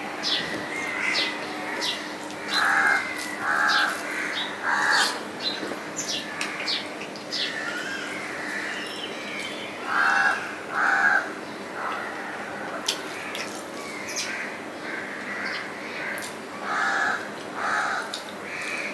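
Crows cawing in three short runs of two or three caws each, over a scatter of close mouth clicks and chewing from a person eating rice and curry by hand.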